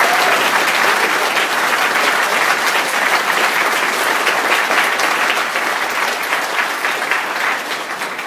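A large audience applauding at length, a dense steady clapping that slowly fades toward the end.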